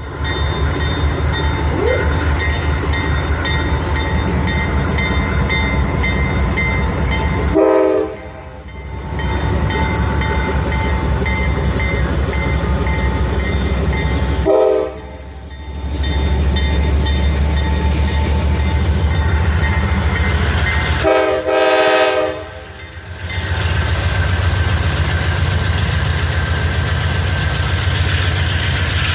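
GE AC44CW diesel locomotive's engine running steadily with a low, even drone, its air horn sounded in short blasts: once about 8 seconds in, once about 15 seconds in, and twice in quick succession about 21 seconds in.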